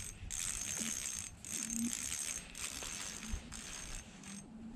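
Fishing reel drag clicking as a hooked fish pulls line off the spool, in about five runs of roughly a second each with short pauses, the last ones shorter.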